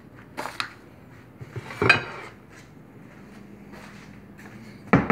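Square ceramic plates being handled: a couple of light clicks, then a louder clatter with a brief ring about two seconds in, and a sharp knock at the very end as a plate is set down.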